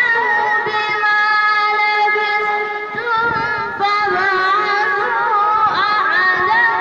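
A boy's voice chanting Quran recitation in long, held, wavering melodic notes.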